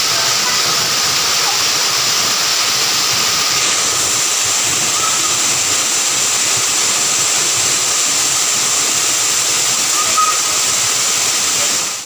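Waterfall pouring into a rocky plunge pool: a steady rush of falling water.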